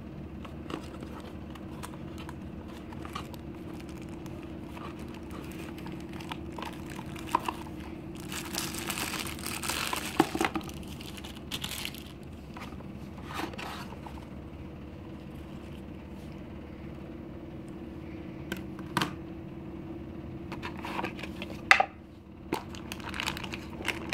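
Plastic packaging crinkling and tearing as a phone box is unpacked, with scattered clicks and taps from the box and its parts being handled. The loudest stretch of crinkling comes about eight to ten seconds in.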